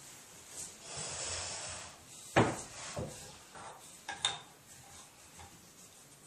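Oak table leg being fitted into the pedestal joint. Wood slides and rubs for about a second, then there is one sharp wooden knock, a smaller knock just after it, and a few light clicks.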